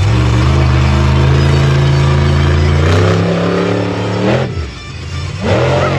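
Monster truck engine running hard at high revs, held nearly steady and climbing slightly, then revving up sharply and letting off about four and a half seconds in; it picks up again near the end.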